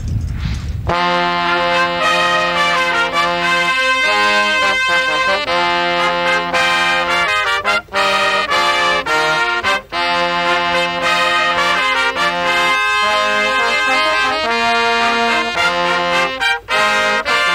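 A brass band of trumpets and saxophones playing the racecourse fanfare, starting about a second in with loud held chords and short pauses between phrases.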